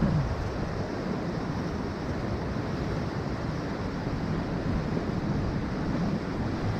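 Steady rush of ocean surf breaking on a rocky shore, mixed with wind buffeting the microphone.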